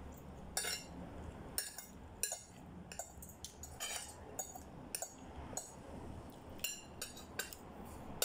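Metal spoon and fork clinking and scraping against a plate while eating, with about fifteen sharp, irregular clinks.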